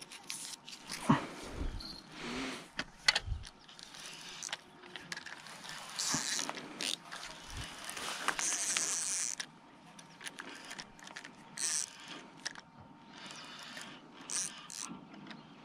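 Fishing reel being cranked in uneven spells, its gears and pawl clicking, mixed with scrapes and rustles of the line and rod being handled.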